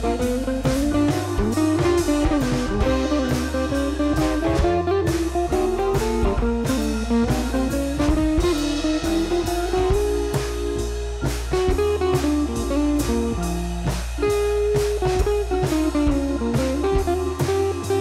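Instrumental background music with guitar over a steady drum beat.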